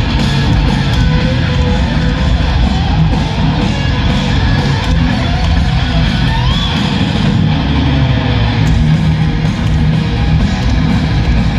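A heavy metal band playing live over a stadium sound system: loud distorted electric guitars and drums, heard from the stands.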